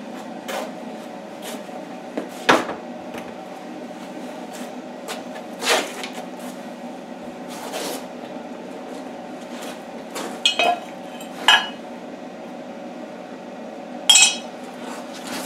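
Metal parts and tools being handled on a workshop bench: half a dozen sharp clinks and knocks over a steady low hum.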